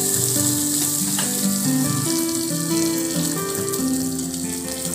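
Hot oil tempering of mustard seeds, curry leaves and dried red chilli sizzling on top of a fenugreek gravy, a steady hiss, under background music.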